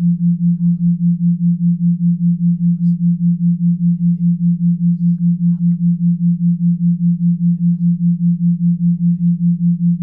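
A single low sine tone, steady in pitch, pulsing on and off in loudness about four times a second: an isochronic tone for hypnosis.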